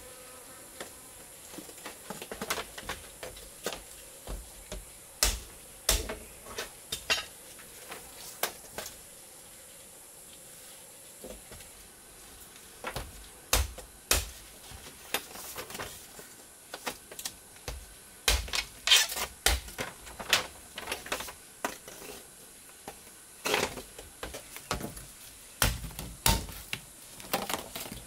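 A steady high-pitched insect drone, with irregular sharp clicks and knocks of handling on top that come thicker in the second half.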